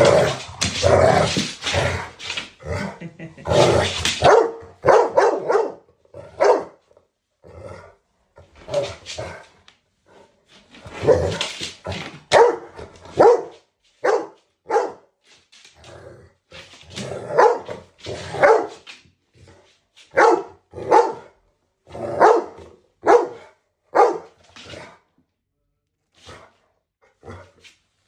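Dog barking over and over at a floor mop, in short separate barks with brief gaps, thicker in the first few seconds and sparser near the end.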